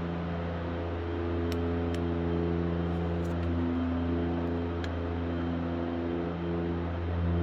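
Background music of slow sustained chords that change every second or two, with a few faint clicks.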